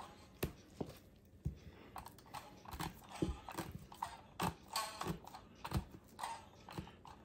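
Handheld needle meat tenderizer (Jaccard) pressed again and again into raw chicken drumsticks on a plastic cutting board: a string of irregular clicks and soft knocks, about two a second, as the blades punch through the skin.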